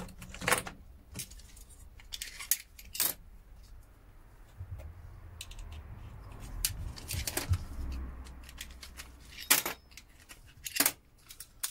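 Small metal parts of relay switches clicking and clinking as they are prised apart and pulled out by hand, in irregular sharp clicks a second or two apart.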